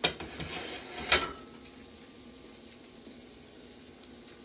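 A plate set down on the kitchen counter with a sharp clink about a second in, over a faint steady sizzle from the pan of ramen noodles and vegetables on the stove.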